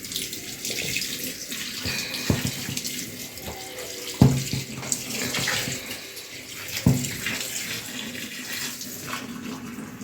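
Water running from a hose into the tub of a single-tub washing machine, filling it over the clothes and washing powder. A few short knocks come about two, four and seven seconds in.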